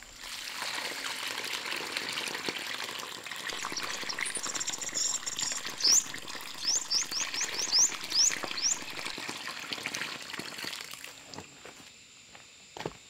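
Water pouring from a cloth bag onto a heap of dug clay soil, splashing into a muddy puddle, until it fades out near the end. Over the middle comes a run of about ten short, high chirps, each rising in pitch.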